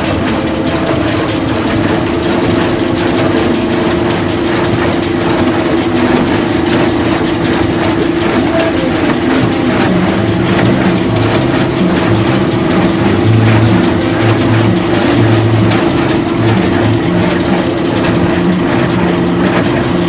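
Tractor engine running steadily with machinery working alongside, a steady whine throughout. From about ten seconds in, a low uneven pulsing joins it.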